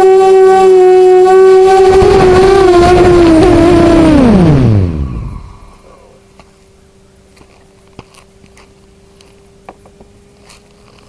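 250-size FPV quadcopter's electric motors whining at a steady high pitch, then spinning down: the pitch falls steeply and the sound stops about five seconds in, as the motors are throttled off or the craft lands. A few faint clicks follow.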